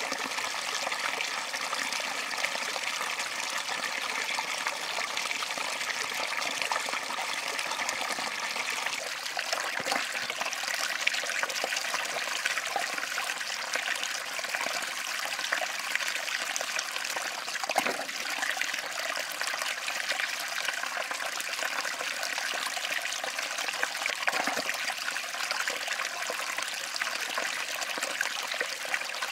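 A small stream of water running steadily over rocks and pouring into a mosquito net set as a fish trap, a continuous trickling splash.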